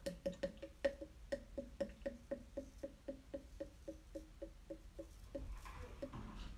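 Short strokes of a Kamisori straight razor cutting stubble, a quick regular series of about four a second that slows a little. Near the end a tap starts running.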